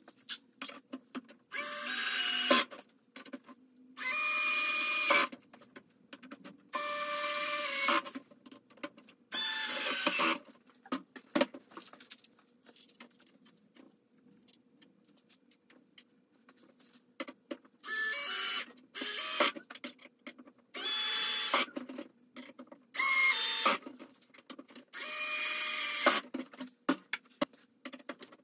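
Cordless drill/driver running at low speed, driving screws into a plastic crate's panels. It goes in about nine short whining runs of roughly a second each, with a pause of several seconds in the middle.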